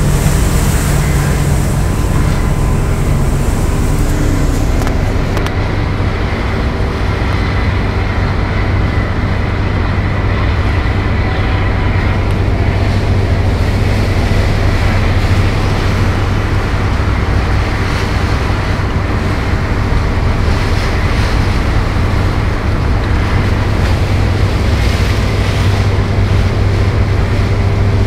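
Steady low drone of a boat's engine under way, with water rushing along the hull. Wind hiss on the microphone for the first few seconds.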